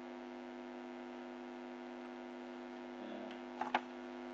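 Steady, faint electrical hum with a stack of overtones, the background of the recording between narration, with two faint short clicks about three and a half seconds in.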